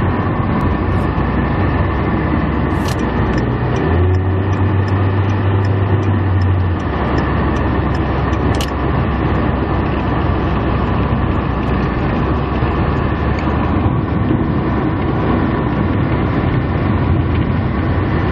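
Steady vehicle noise of driving on a highway behind and beside a semi-trailer truck: a continuous rumble of tyres and engines, with a deeper hum between about four and seven seconds in.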